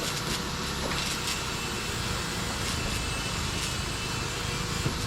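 Welding overhead: a steady crackling hiss from the welding arc, with a few sharper crackles and a faint steady hum underneath.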